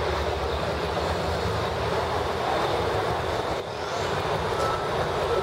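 Steady city street noise with a low engine rumble from traffic or idling vehicles.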